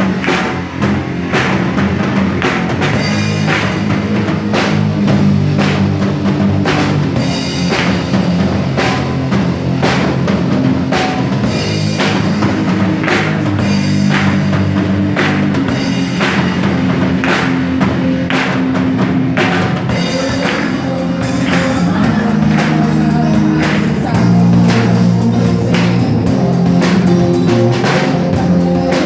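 Instrumental introduction to a gospel worship song: a drum kit plays a steady beat over sustained low bass chords, without singing.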